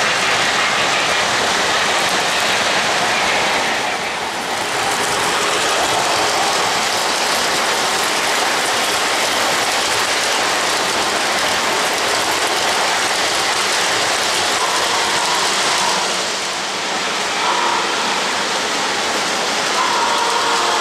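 O-gauge model trains running on three-rail track: a steady rolling hiss and rattle of wheels on rail. It dips briefly twice, and a few faint tones come in near the end.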